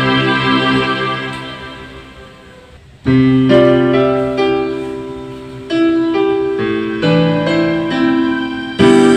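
Yamaha PSR-E373 portable keyboard being played. A held chord fades away over the first three seconds. Then new chords are struck, with moving notes above them, and fresh chords come in again twice more.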